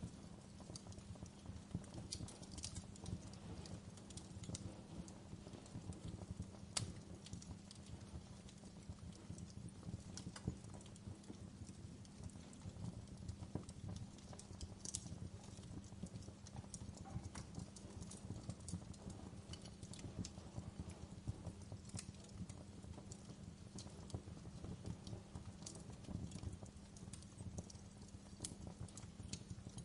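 Wood fire burning in a fireplace: a steady low rumble of the flames with frequent sharp crackles and pops from the burning wood.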